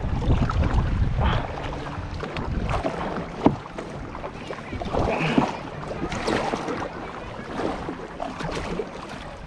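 Kayak paddles dipping and splashing in sea water, irregular strokes about once a second, with wind buffeting the microphone in the first second or so. A single sharp knock about three and a half seconds in.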